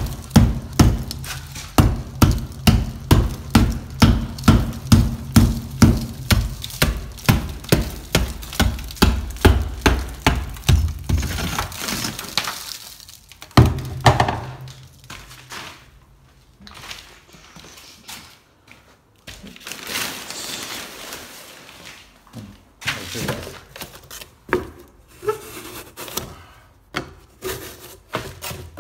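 A hand tool chipping and scraping loose plaster out of a crack in a plastered wall: rapid, even strikes, about two a second, for the first twelve seconds. Then comes one harder knock, followed by slower, irregular scraping and crumbling of plaster.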